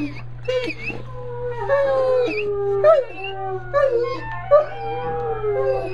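Bloodhound howling: a run of wavering howls, the longest held a second or more and sliding slowly down in pitch.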